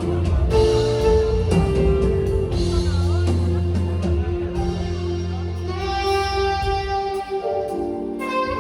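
A live band arrangement featuring two saxophones, heard through the front-of-house mix, with bass and guitar underneath. The bass drops out about six seconds in, and a bright held melody note takes over.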